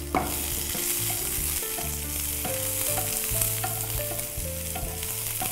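Chopped onions and mustard seeds sizzling in hot oil in a nonstick kadai, stirred with a wooden spatula; a steady frying hiss with a light scrape or click just after the start.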